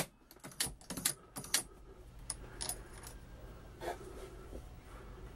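Quick metallic clicks and clinks of a Hornady Lock-N-Load AP reloading press being worked and a brass .40 S&W case being handled, busiest in the first second and a half, then a few scattered clinks.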